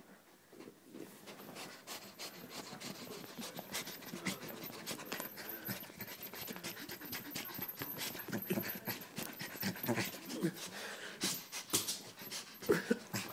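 A dog panting rapidly and hard close to the microphone while playing excitedly; the panting starts faint and grows louder through the second half.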